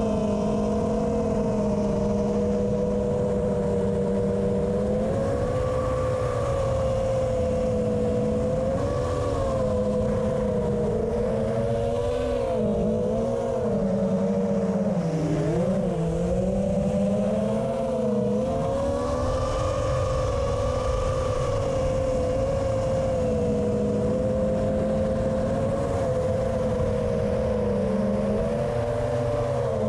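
Quadcopter motors and propellers whining steadily, close up from a camera mounted on the drone. The pitch wavers up and down with throttle changes and dips lower around the middle. Low wind rumble runs underneath.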